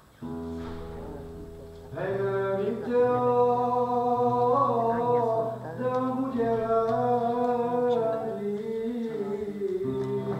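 Live acoustic guitar accompanying a singer. The voice comes in about two seconds in with long held notes that slide between pitches.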